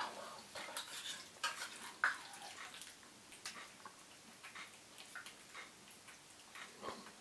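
A metal spoon scraping and clinking against the inside of a small tin as cat food is spooned out onto a plate, in a run of short scrapes and clicks with a sharper one about two seconds in, thinning to scattered light ticks after about three seconds.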